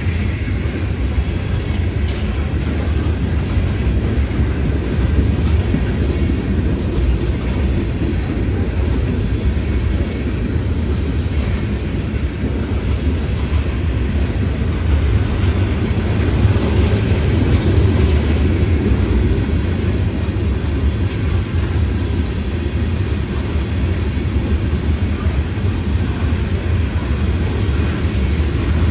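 Freight cars of a passing Norfolk Southern mixed freight train rolling by: a steady, loud rumble of steel wheels on the rails.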